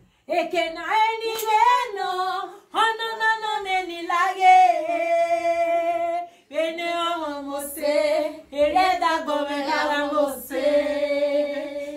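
Women singing together unaccompanied, in long phrases with drawn-out held notes, breaking briefly about three and six seconds in.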